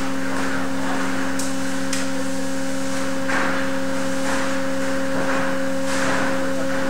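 Steady machinery hum made of several fixed low tones, from the equipment of a steel-beam load test rig. Two faint sharp clicks come about one and a half and two seconds in, and a few brief soft noisy swells follow later.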